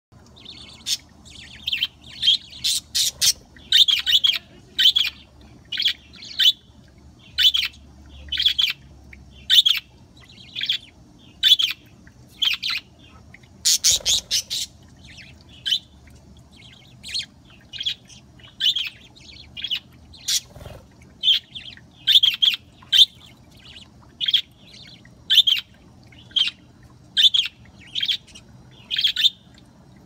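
Budgerigars chirping: short, sharp, high calls repeated about one to two a second, with a few louder, harsher ones among them. An adult male and his young budgies calling back and forth.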